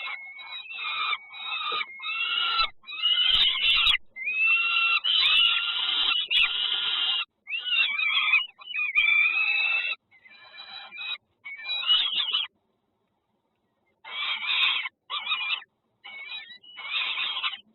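Nestling birds' harsh, raspy begging calls in repeated bursts of a second or two. They break off for about a second and a half near two-thirds of the way through, then start up again.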